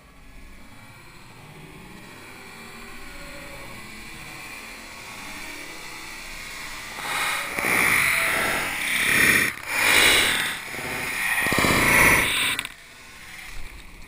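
Ocean surf breaking. A wave's rush builds for several seconds. Then, about seven seconds in, whitewater crashes and splashes loudly over and around the camera in three surges, cutting off abruptly near the end.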